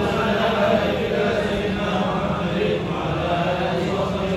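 Congregation chanting religious recitation together in unison, many voices holding long notes that rise and fall slowly.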